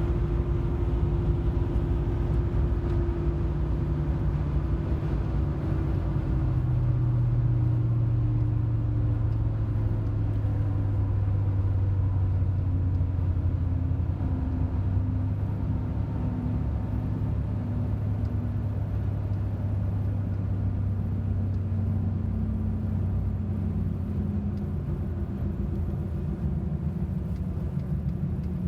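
Chevrolet Silverado pickup on the move, a clear whine sounding over a steady low road and drivetrain rumble. The whine slowly drops in pitch over most of the clip, and a second whine tone comes in near the end.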